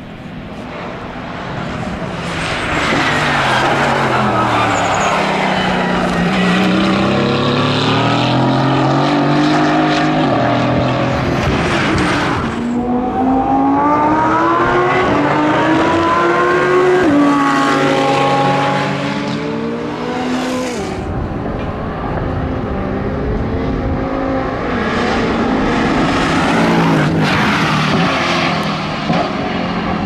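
Mercedes-AMG GT4 race cars' 4.0-litre biturbo V8 engines at full throttle passing by, accelerating through the gears: the engine pitch climbs and drops back at each upshift, over several separate passes.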